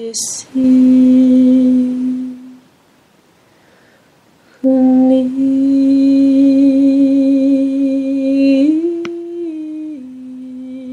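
A single voice humming long held notes in a meditative toning style. A short note comes first, then a pause of about two seconds, then a long note with a slight waver. Near the end it steps up in pitch and then drops back down.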